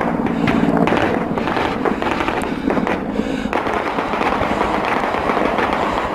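Sustained automatic gunfire from several weapons, the shots cracking rapidly and overlapping without a break, fired up at a helicopter.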